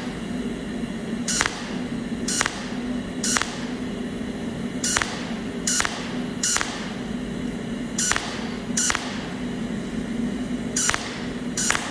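Welding work on small metal pieces: a steady electrical hum with about ten sharp, short strikes at uneven intervals, each dying away quickly.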